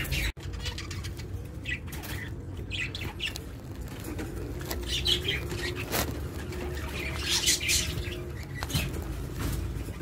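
Budgerigars chirping in short scattered bursts of high twittering, over a steady low hum.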